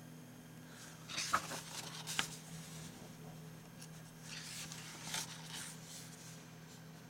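Pages of a comic book being turned by hand: paper rustling in two spells, about a second in and again around four seconds in, with two sharp snaps of paper in the first spell.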